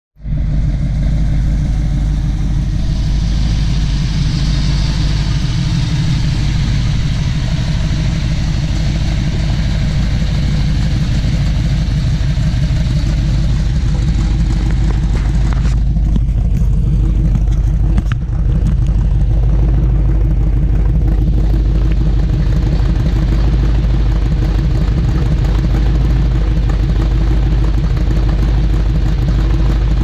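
A 454 cubic-inch big-block Chevrolet V8, fuel-injected with a Holley Sniper EFI and breathing through Hedman headers, running steadily at idle with a low exhaust rumble.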